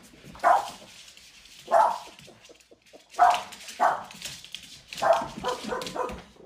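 Boston terrier barking in short separate barks about every second or so, coming quicker near the end.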